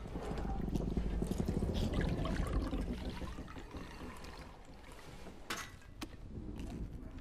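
Greedy eating: food torn and chewed noisily with wet mouth sounds, loudest in the first few seconds. Liquid is poured from a jug into a metal goblet, and two sharp clicks come near the end.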